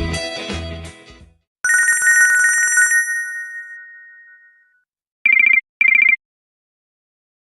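Nokia 7100 mobile phone ringtones played in turn: the end of a musical tone fades out, then a warbling electronic trill starts about one and a half seconds in and dies away over about three seconds, followed by two short electronic beeps.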